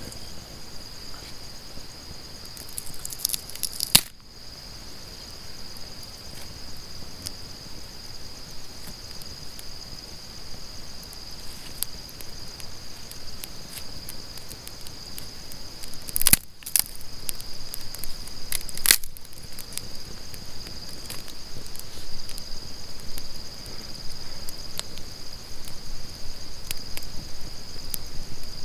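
Steady, high-pitched chorus of night insects trilling without a break, with a few sharp snaps of wood from the campfire: one about four seconds in, two close together past the middle and one more shortly after.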